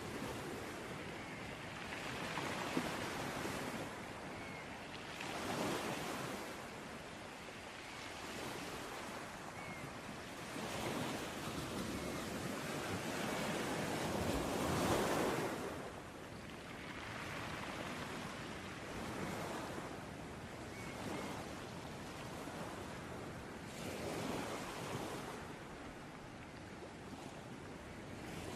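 Ocean waves breaking and washing on a shore, swelling and fading every few seconds, with the biggest wave about halfway through.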